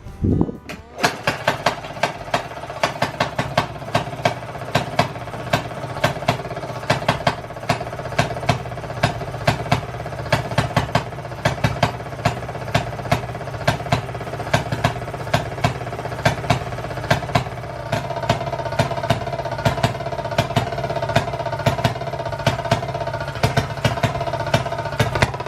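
Maytag two-stroke washing-machine engine running on its own, hit-and-miss: sharp firing pops a few times a second at uneven spacing, over the steady whir of the spinning engine.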